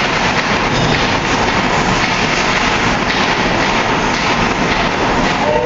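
Steady, loud noise of ice hockey play: skates scraping the ice and sticks clattering in a scramble in front of the net.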